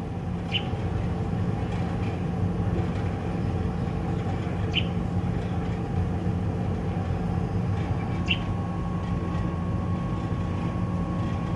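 Fledgling American robin giving single short, high chirps about every four seconds, three in all: the location call a hungry fledgling uses to tell its parents where it is. The chirps sit over a steady low hum, and a faint steady whine joins about two-thirds of the way through.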